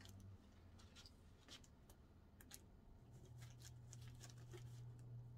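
Near silence with faint, scattered clicks and rustles of hands handling and taping a wig cap. A low steady hum comes in about three seconds in.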